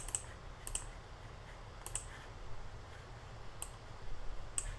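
Computer mouse clicks, a handful of short sharp clicks at irregular intervals, some in quick pairs.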